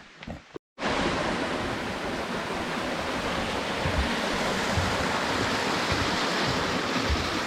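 Steady rushing of running stream water, starting abruptly about a second in.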